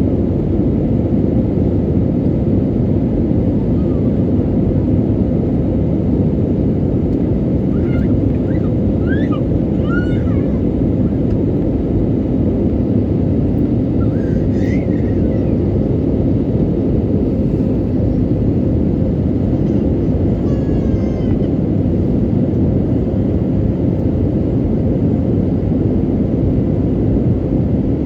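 Airliner cabin noise: the steady, even roar of the engines and airflow heard from a passenger seat, with a few faint, brief higher sounds over it.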